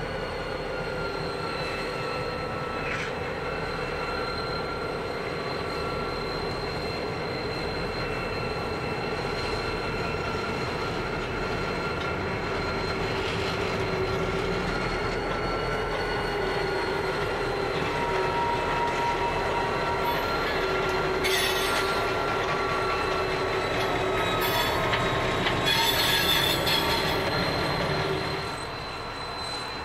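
Pacific National 81 class and BL class diesel-electric locomotives rolling slowly past, engines running, with a steady high-pitched whine over the engine rumble. Two short bursts of hiss come about two-thirds of the way in and again near the end, and the sound then drops away.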